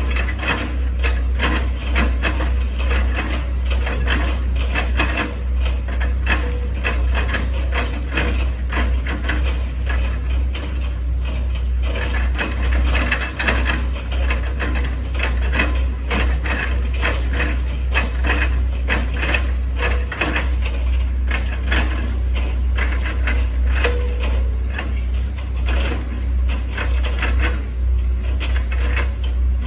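Hitachi ZX110 MF excavator's diesel engine running steadily under a constant low drone, with dense, irregular cracking and crunching as its bucket chops and slices an oil palm trunk.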